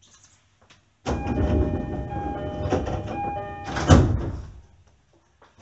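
Sliding passenger doors of a JR E531-series train car closing: a sudden rush of noise with a few steady tones, ending in a loud thump about four seconds in.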